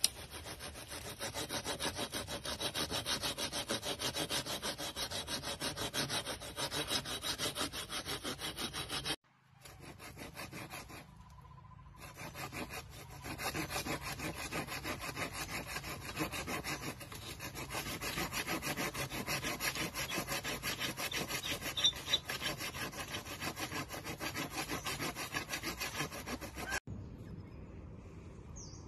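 Hand saw cutting through a fallen wooden log with steady, rhythmic back-and-forth strokes. The sawing breaks off briefly about nine seconds in, then resumes. It stops near the end, leaving quieter outdoor background sound.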